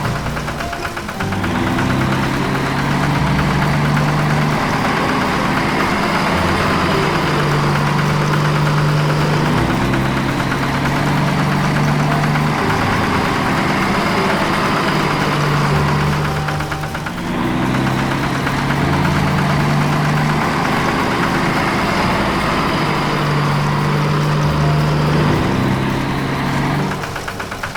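Cartoon farm vehicle engine sound effect running steadily, its low pitch stepping up and down every second or two, with a brief drop about 17 seconds in.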